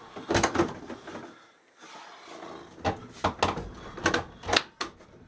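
Knocks and clunks from a window air conditioner being wrestled out of a tight window opening: one knock about half a second in, then a quick run of bangs and scrapes a couple of seconds later.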